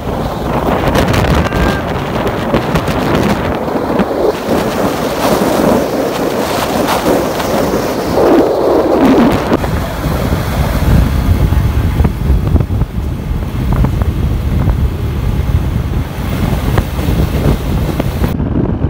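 Wind rushing over the microphone on a moving motorcycle, with the motorcycle's engine and road noise underneath. A brief falling sweep comes about eight seconds in.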